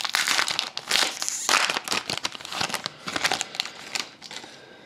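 The foil wrapper of a hockey card pack crinkling and tearing as it is ripped open by hand. The dense crackle dies down about four seconds in.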